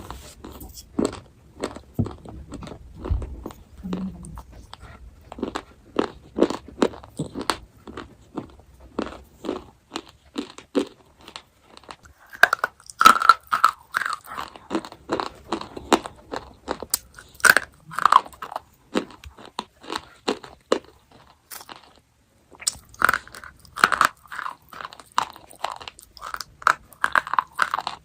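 Chocolate being bitten and chewed close to the microphone: a steady run of crisp crunching chews, a few to each second, with a brief pause about three-quarters of the way through.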